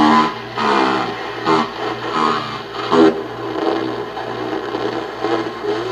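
Playback of a low-fidelity 8-bit digital recording stored on an EPROM in a homemade sound recorder: gritty, distorted pitched sound, stronger in the first three seconds, over a steady low hum.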